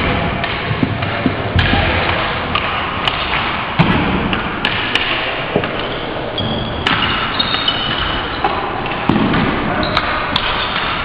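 Ball hockey play on a gymnasium floor: stick blades knocking the ball and slapping the floor, with scuffling footsteps, heard as many short sharp knocks over a busy background of echoing hall noise.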